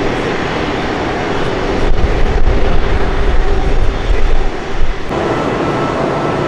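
Airbus A320 jet engines at takeoff thrust on the runway roll, a loud roar with a deep, uneven rumble. About five seconds in the sound switches abruptly to a steadier jet roar with a faint whine from an Airbus A330 on approach with its landing gear down.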